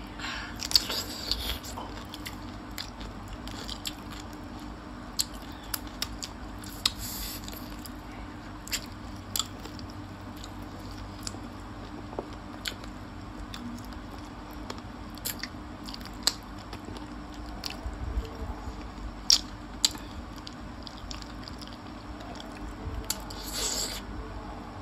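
Close-miked mukbang eating: a crisp bite into a raw cucumber slice about a second in, then chewing of gravy chicken feet with scattered wet smacks and clicks, and another burst of crunching near the end.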